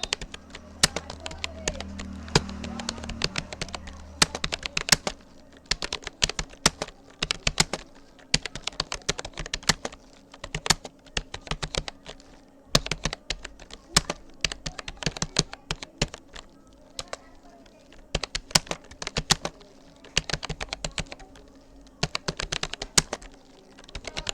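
Typing on a Rapoo computer keyboard: rapid bursts of key clicks separated by short pauses.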